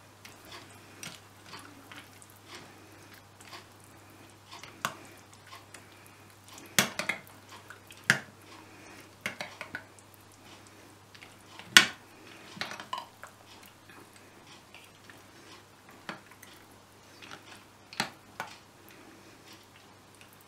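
Spoon stirring thick yogurt raita in a glass bowl, knocking against the glass in irregular clinks, the loudest about twelve seconds in.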